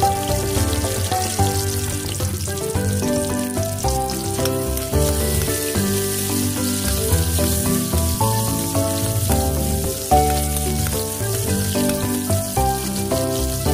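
Chopped garlic, shallot and tomato sizzling as they sauté in hot oil in a metal wok, with a steady hiss. Instrumental background music with held, changing notes plays throughout.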